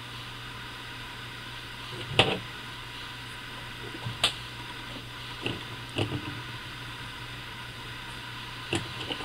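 A handful of short clicks and taps as small metal and plastic parts of a Daisy Powerline 880 air rifle are handled and fitted together, the loudest about two seconds in, over a steady low hum.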